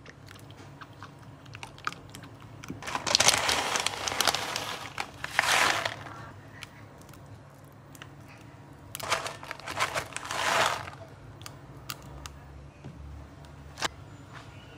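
Plastic food packet crinkling as it is handled, in two bursts a few seconds apart, with light clicks and taps between.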